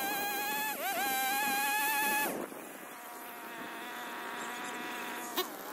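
Two-stroke chainsaw running at full throttle with a high buzz, dipping briefly in pitch as it bites into the tree. About two seconds in it drops to a quieter idle. A short click comes near the end.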